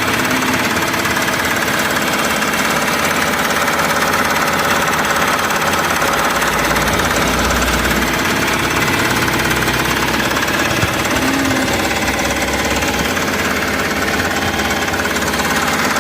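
Mahindra Supro's engine running steadily with a knocking, clattering beat, now with no fault showing after its camshaft position sensor was replaced.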